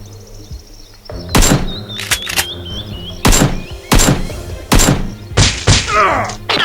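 A series of about six sharp thunks, a second or so apart, over background music.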